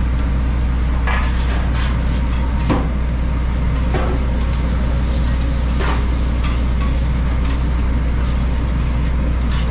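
Metal spatula clinking and scraping on a steel flat-top griddle a handful of times at irregular intervals, with sizzling from meat and mushrooms on the plate. Under it runs a loud, steady, low machine hum from the food truck's equipment.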